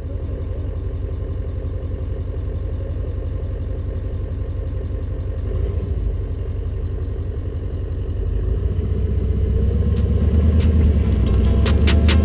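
Audi SQ7's 4.0 TDI V8 diesel engine running steadily at low revs with a deep exhaust note, rising slightly a couple of times. About ten seconds in, music with a ticking beat comes in over it.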